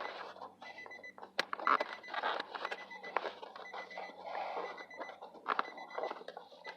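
Infiniti G35's key-left-in-ignition warning chime beeping over and over, with the door open. Scattered clicks and rustling from wiring and interior trim being handled.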